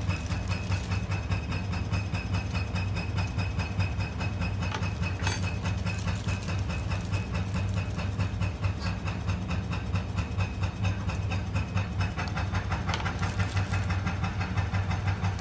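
Electric kettle boiling instant noodles: a steady bubbling rumble with a low hum under it.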